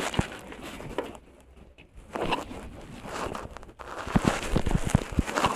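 Rustling and handling noise with scattered light clicks and knocks, quieter for a moment about a second in, then a run of soft knocks in the second half.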